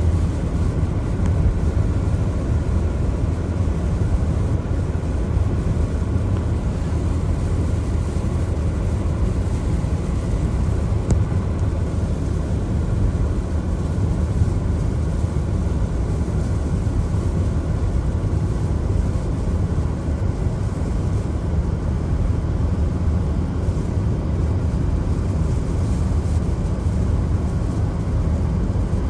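A car driving on wet roads in the rain: steady road and tyre rumble, heavy in the low end and unbroken.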